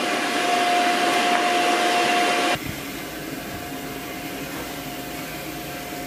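Steady rushing blower noise with a constant whine, which drops suddenly to a quieter, lower rush about two and a half seconds in.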